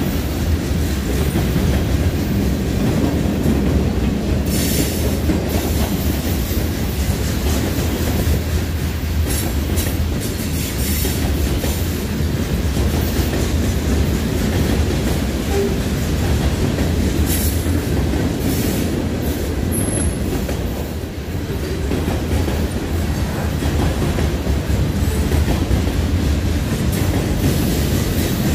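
Mixed freight train of covered hoppers, boxcars and tank cars rolling past: a steady rumble and clatter of steel wheels on the rails, with brief high-pitched wheel squeals now and then.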